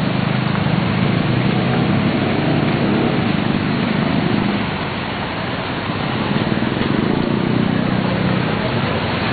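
Motor vehicle engine running steadily over a constant haze of street noise, dipping briefly in level about five seconds in.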